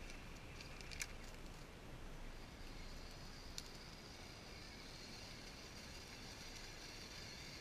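Faint steady high whine of the electric motor of an Axial SCX10 RC crawler, setting in about three seconds in as the truck creeps along, over a soft hiss, with a light click about a second in and another a little later.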